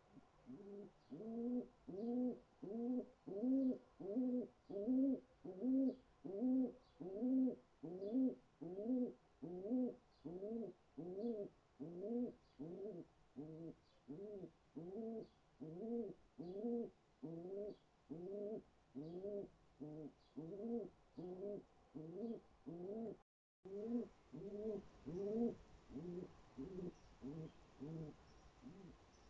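Pigeon cooing in a long, steady run of short coos, about two a second, each note rising and falling in pitch, the run getting quieter in its second half.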